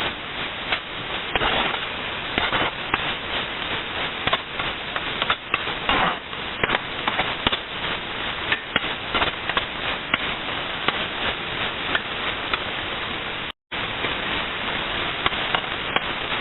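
Scraped coconut frying in oil in a pan: a steady sizzle with many small crackles and pops. The sound cuts out for a moment near the end.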